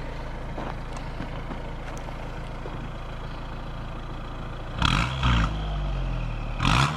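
Audi A4 2.0T's turbocharged four-cylinder running through a freshly fitted 3-inch cat-delete downpipe: it idles steadily, then is blipped twice near the end, rising and falling in pitch each time. A turbo whistle comes through on the revs.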